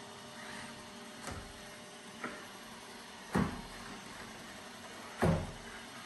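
Dreame F9 robot vacuum running with a steady hiss, its bumper knocking against table and chair legs four times, the two loudest knocks about halfway through and near the end.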